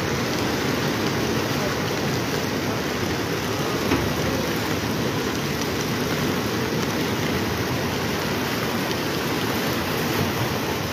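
Muddy floodwater rushing through a rain-swollen stream: a steady, dense rushing noise with no break.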